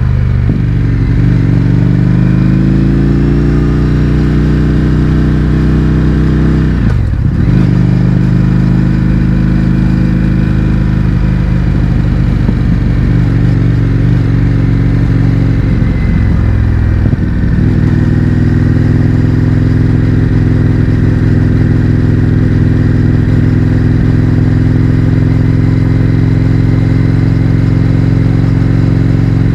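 Indian FTR 1200's V-twin engine through an Akrapovic exhaust with the baffles removed, riding under way: the note rises under acceleration at first, breaks briefly about seven seconds in and again around seventeen seconds, then holds steady at cruise.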